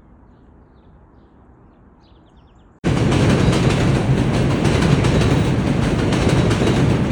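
A quiet outdoor background with a few faint bird chirps, then a loud, steady rumbling roar that starts suddenly about three seconds in and stops abruptly at the end.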